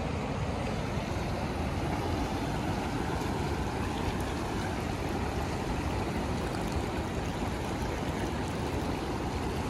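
Steady rush of a fast-flowing river in spate, its water running high and forceful from an open check-dam gate.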